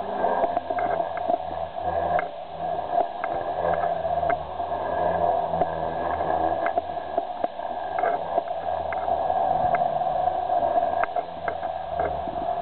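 Protos 500 electric RC helicopter, running on two 3S LiPo packs in series, in aerobatic flight: a steady motor-and-rotor whine with blade buzz that swells and fades as it manoeuvres.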